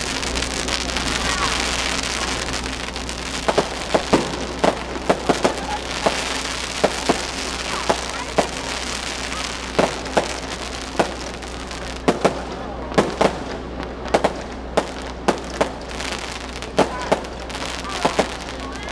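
Aerial fireworks going off: a crackling hiss, then from about three seconds in a string of sharp bangs and pops at irregular spacing, sometimes several a second.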